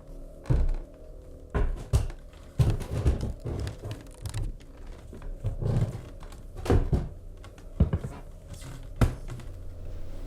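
Irregular knocks and thumps of someone rummaging through cupboards and drawers, in a small room, over a low steady hum.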